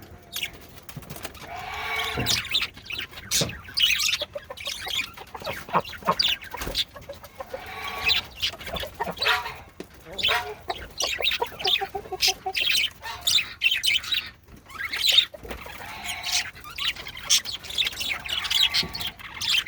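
Male budgerigars chirping and chattering: a busy run of short calls with brief pauses.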